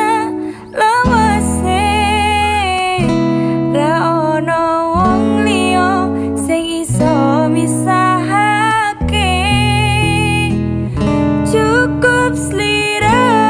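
Music: a song with a sung melody over guitar accompaniment and held low notes.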